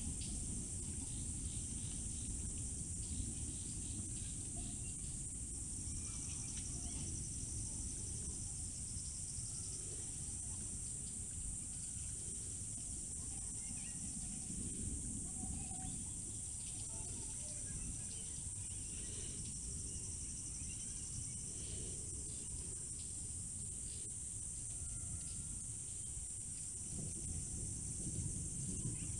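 Steady high-pitched trilling of a cricket or insect chorus, with a low rumble underneath and a few scattered faint short calls.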